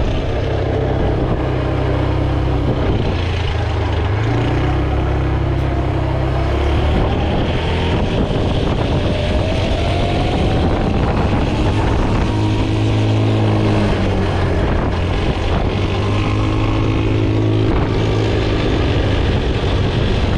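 A motor vehicle's engine running steadily, its pitch shifting a few times, with a slowly rising whine in the middle.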